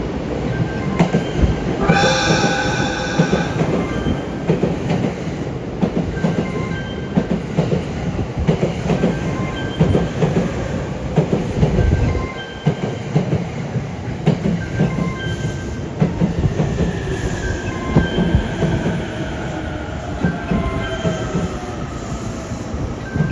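JR East E231- and E233-series electric train running into a station. Its horn sounds once for about a second and a half about two seconds in. Wheels clatter over rail joints throughout, and a whine falls in pitch in the last several seconds as the train slows.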